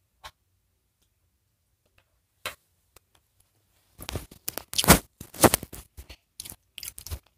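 Close handling noises: a couple of isolated clicks, then from about four seconds in a quick irregular run of rustles, scrapes and clicks.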